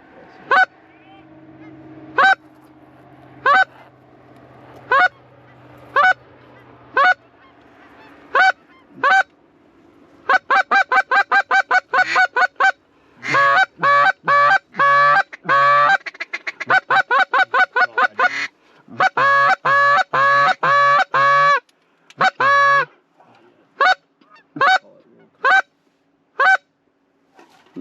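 Hand-blown goose calls, very close and loud: single honks about once a second, then long runs of fast clucks and honks, calling to passing geese.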